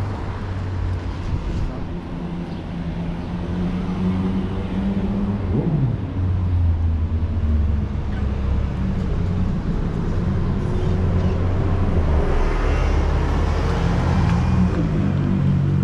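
City street traffic: vehicle engines running close by with a steady low hum, growing louder over the first few seconds. A pitch glide falls about six seconds in and another rises near the end, as vehicles pass or pull away.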